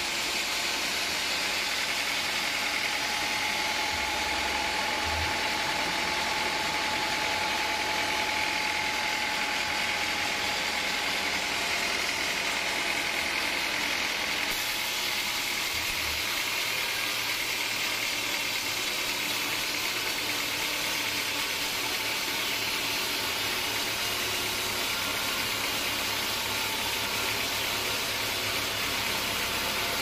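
Band sawmill running, its blade cutting lengthwise through a large log: a steady machine whine over a constant hiss.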